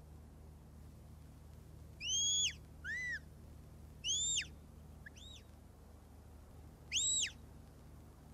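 Shepherd's whistle commands to a working border collie herding sheep: about five separate high whistle notes. Each swoops up, holds briefly and drops away; the first comes about two seconds in, one a little later is lower and shorter, and the last is near the end.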